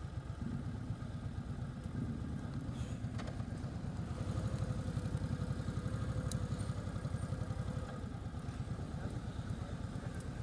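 Motorcycle engine running under way, a fast steady pulse of firing strokes. It grows louder about four seconds in and eases back a couple of seconds before the end.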